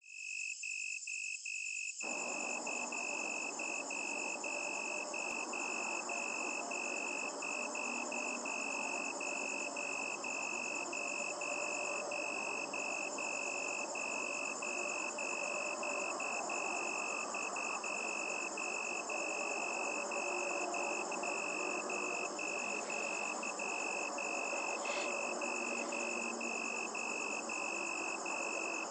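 Night chorus of crickets: a steady, shrill trill that pulses about twice a second, with higher trilling layered above it, over a low even hiss that comes in about two seconds in.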